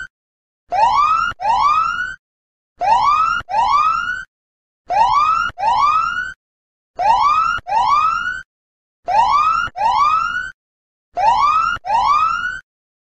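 Countdown timer's end alarm: six pairs of rising electronic whoop tones, one pair about every two seconds, with silent gaps between.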